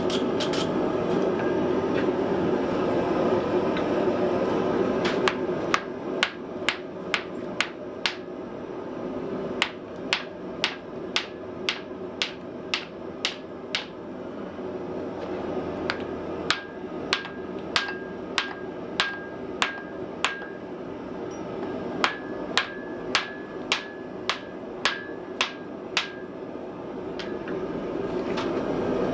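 Hand hammer blows on metal on an anvil, about one a second in runs with short pauses. Many strikes leave a brief high ring, over a steady forge roar.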